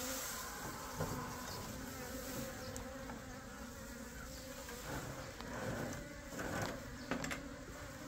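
Steady buzzing of a swarm of native Korean honeybees (Asian honeybees) that has just issued and is settling into a ball-shaped cluster, swelling briefly now and then.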